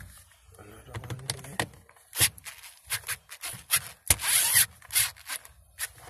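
Plastic dashboard trim around the radio head unit being handled and worked loose by hand: scattered clicks and rubbing, with a short scraping rustle about four seconds in.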